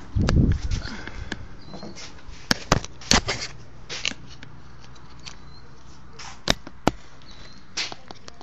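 Handling noise from a hand-held camera being moved: a low rumbling bump about a second long at the start, then a scatter of sharp clicks and knocks, the loudest a few seconds in.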